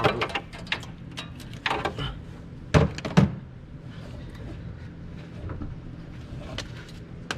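A string of sharp knocks and clicks from hand tools and loosened bolts being worked and handled while engine-bay covers are removed. The two loudest come about three seconds in, and after that only a low steady hum remains.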